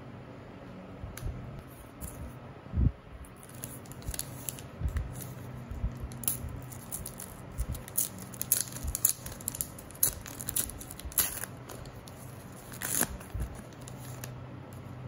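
Foil trading-card booster pack being torn open and crinkled by hand: a long run of sharp crackles and tearing rustles. A single dull thump comes just under three seconds in.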